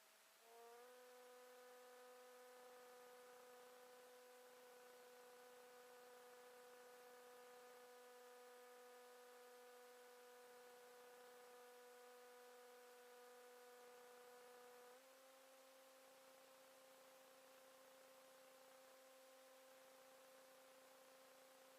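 Faint steady electrical hum with several overtones. It rises in pitch into place about half a second in and steps slightly higher about fifteen seconds in.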